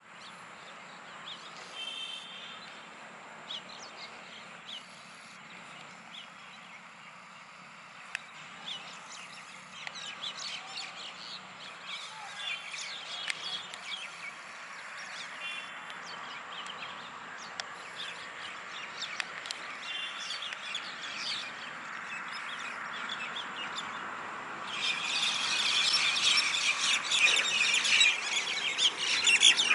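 A flock of common mynas calling, many short overlapping calls that build slowly and grow much louder in the last five seconds.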